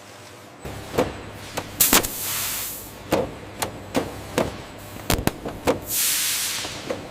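Factory machinery: a run of sharp, irregular clacks and knocks over a low steady hum, with two hissing blasts of air, the first about two seconds in and the second near the end.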